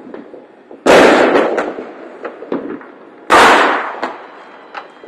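Fireworks: two loud bangs about two and a half seconds apart, each echoing away over about a second, with scattered smaller pops and crackles in between.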